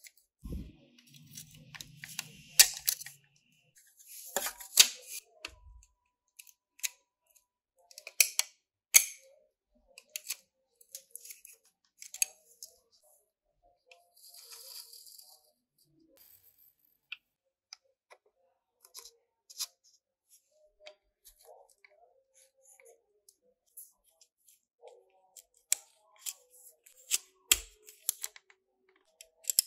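Irregular small clicks and taps of metal parts and tweezers against the plastic chassis of a model car being reassembled by hand, with a few short scraping rustles between them.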